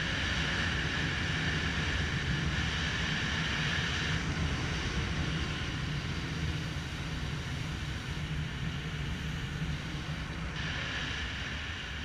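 Jet ski engine running at speed: a steady drone with water rushing under the hull, growing brighter and easing off a few times as the throttle changes.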